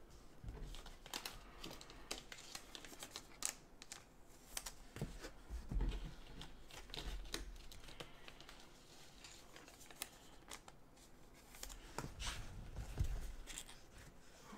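Trading cards in plastic sleeves and rigid top loaders being handled and set down on a mat: scattered light clicks, taps and rustles.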